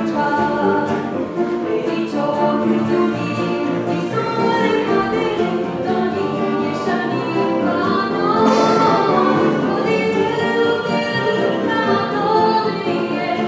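Voices singing held notes, accompanied by violin and piano.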